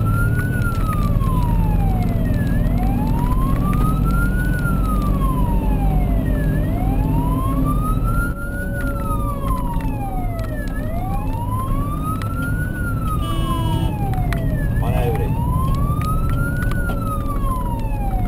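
Fire engine's wailing siren, rising and falling slowly about every four seconds, over the steady rumble of the truck's engine, heard from inside the cab.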